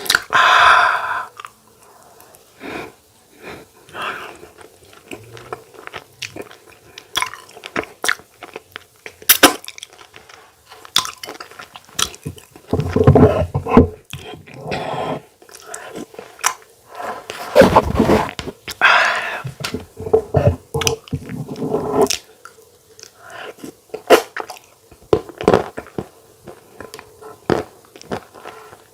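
Close-up eating sounds: a person chewing and smacking on fufu and soup, with many short wet clicks and a few louder stretches of mouth noise about halfway through.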